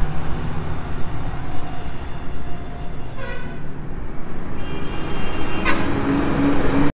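Army trucks driving past with a steady low engine rumble. A horn toots briefly about three seconds in, then a longer horn blast sounds from just past halfway until the sound cuts off abruptly near the end.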